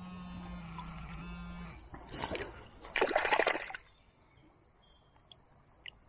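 Metal detecting pinpointer giving a steady buzzing alarm for about a second and a half as it is held to a handful of river mud, signalling the metal coin hidden in it. Then water splashes twice, the second longer and louder, as the mud is washed away in the shallows.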